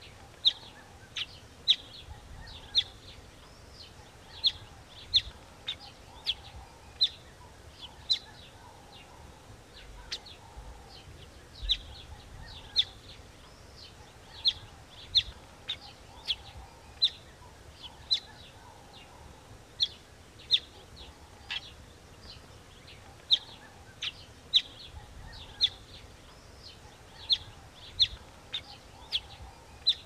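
Southern masked weaver giving short, sharp, high chirps, about one a second at uneven spacing, over a faint, steady background murmur.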